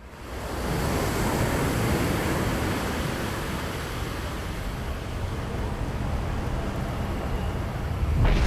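Ocean surf fades in: a steady rushing wash with a deep low rumble. A louder whoosh comes just before the end.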